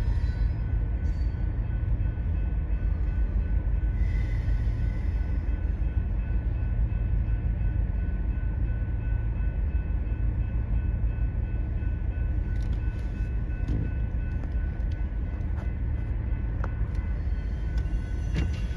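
Freight train cars rolling past: a steady low rumble of wheels on rails with a faint, steady high-pitched tone over it. A few light clicks come in the last third.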